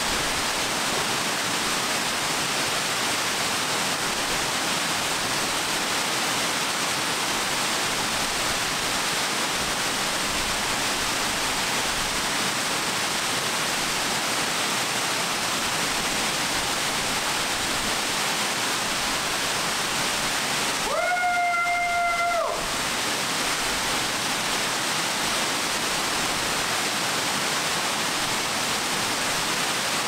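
Steady rush of a waterfall pouring down onto rocks. About two-thirds of the way in, a single held, high-pitched cry lasts about a second and a half, with the water noise briefly dropping away around it.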